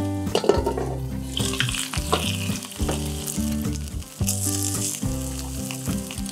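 Chicken and ginkgo-nut tsukune patties sizzling in a frying pan, with background music playing over them.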